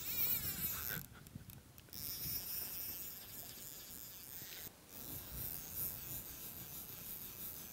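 Rasping fly line and reel as a hooked trout is played on a fly rod, in two stretches with a short break a little under five seconds in.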